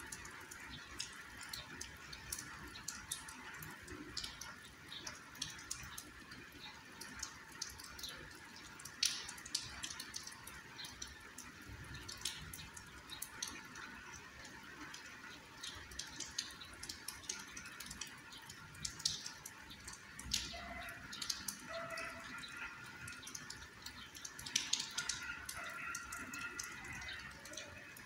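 Light rain with irregular drips and drops ticking close by over a soft steady hiss, a few drops a second.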